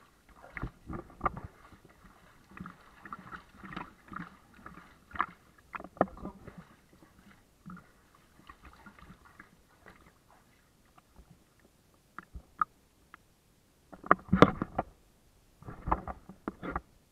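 Bathwater splashing and sloshing in a tub as a hand scoops water over a soaked fake fur coat, in irregular bursts. It is quieter for a few seconds in the middle, and the loudest splashing comes about 14 seconds in.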